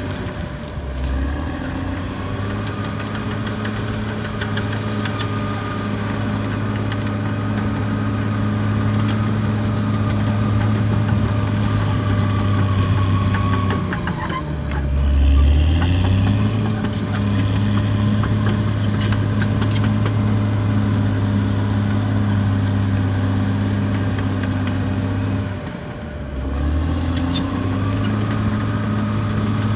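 Caterpillar D6R XL bulldozer's diesel engine running steadily under load. Its note drops and comes back up three times: near the start, about halfway, and near the end.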